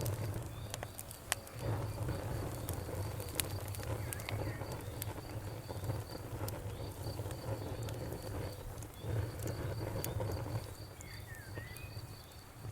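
Campfire crackling, with scattered sharp pops over a low, uneven rumble. A cricket chirps high above in a fast, even rhythm throughout.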